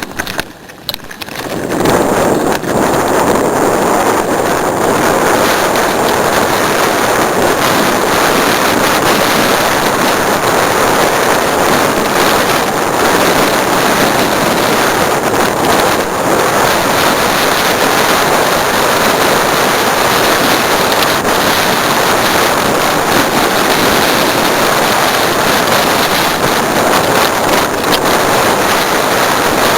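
Steady wind rushing over the microphone of a camera carried along on a moving mountain bike, coming up loud about two seconds in and staying even.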